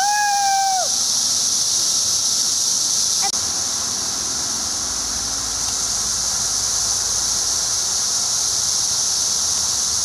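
Chorus of 17-year periodical cicadas: a loud, steady, high-pitched drone that does not let up. In the first second a short held pitched call falls away at its end.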